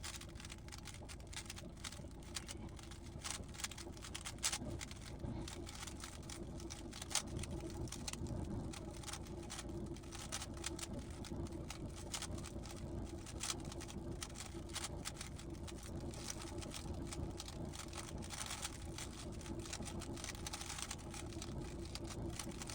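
GAN 15 speedcube being turned quickly, a dense run of small plastic clicks and clacks, over a steady low room hum.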